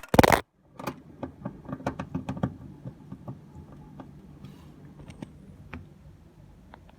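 A loud bump right at the start, then a run of small clicks and taps that thin out and fade over a few seconds: a screwdriver turning the screws that hold a washing machine's door lock in place.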